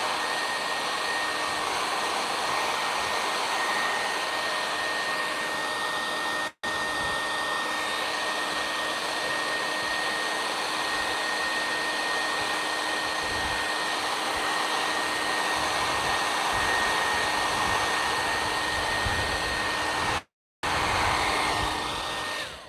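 Handheld Conair hair dryer running steadily with a thin high whine over its rushing air, blown onto a freshly spray-painted stencil canvas to dry the paint. The sound drops out briefly twice and stops right at the end.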